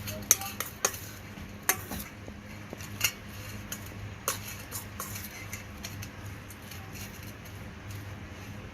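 Kitchen utensils clinking and knocking against dishes: about a dozen irregular sharp clinks, the loudest in the first two seconds.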